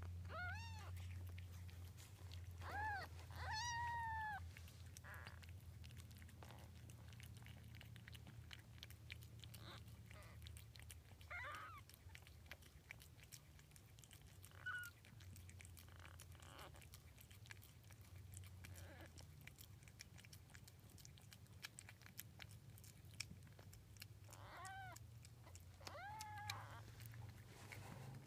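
Five-day-old kittens mewing in short, thin, high-pitched cries that rise and fall. There are three near the start, a couple in the middle and two near the end.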